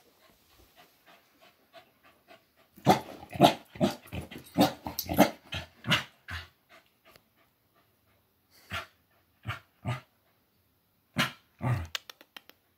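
Corgi puppy barking excitedly: faint quick panting at first, then a rapid run of barks lasting about three and a half seconds, followed by a few scattered single barks.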